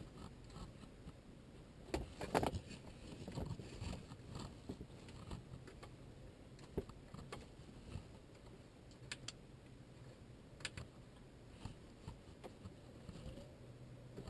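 Faint, scattered clicks and handling sounds, a few sharper clicks close together about two seconds in: the buttons and rotary knob of a Pioneer MVH-S522BS car stereo being pressed and turned while scrolling through its setup menu.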